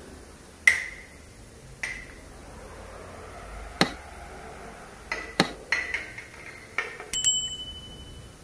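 Sharp metal clinks and taps as a piston and connecting rod are handled against a Toyota 1GR-FE V6 engine block: a few single clinks, then a quick cluster of taps, followed by a short high ringing ding about seven seconds in.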